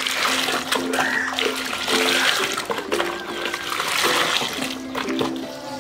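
A stream of water pouring and splashing into a plastic bucket of soapy water, foaming it up. Background music with plucked notes plays along.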